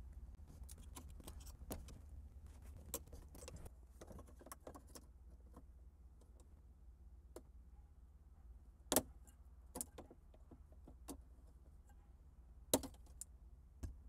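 Small plastic clicks and rattles from a plastic wiring-harness clip being worked loose from a metal bracket by fingers and a trim tool until it breaks. Sharper single snaps come about nine seconds in and again near the end, over a low steady hum.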